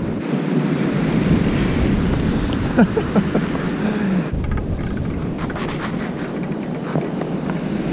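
Surf breaking and washing up a sandy beach in a steady rush, with wind buffeting the microphone.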